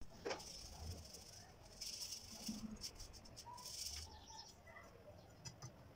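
A round metal kitchen sieve is shaken by hand to sift ground chickpeas and grain, giving faint, irregular swishing and rattling strokes as the powder and coarse bits move over the mesh.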